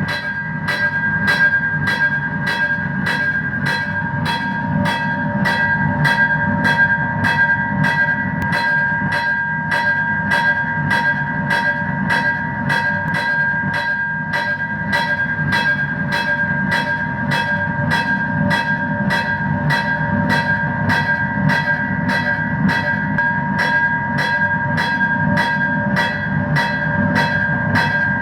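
Railroad crossing bell ringing steadily, about two strikes a second, each strike leaving a sustained metallic tone, over a continuous low rumble.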